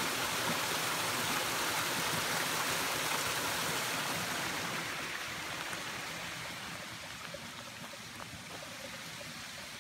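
Small woodland waterfall splashing over mossy rocks into a shallow pool: a steady rush of water that grows fainter through the second half.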